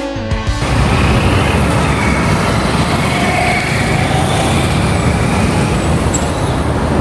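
Outdoor street background noise: a steady rush with a strong low rumble.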